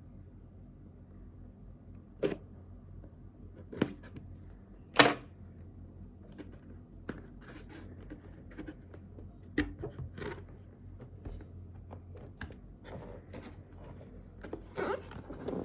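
Handling noise from unboxing: a scattered series of sharp clicks and knocks, the loudest about five seconds in, then a busier stretch of small clicks and rustling near the end, over a low steady hum.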